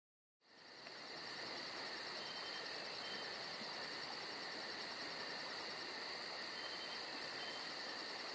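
Night chorus of crickets and other insects: a steady high trill layered with a fast, even pulsing. It fades in quickly just under half a second in and then holds level.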